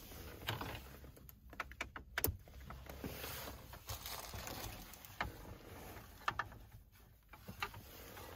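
Faint handling noise of small car-stereo parts: scattered sharp clicks and light rustling as a small metal radio aerial adapter and a head unit with its wiring are handled, the loudest click about two seconds in.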